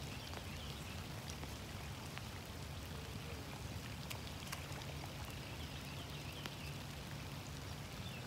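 Steady rain falling, with scattered close raindrops ticking sharply and irregularly.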